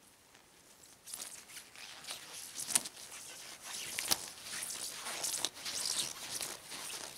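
Layered green rubber gloves rubbing and rustling against each other and against a strap, starting about a second in, with a few sharp clicks along the way.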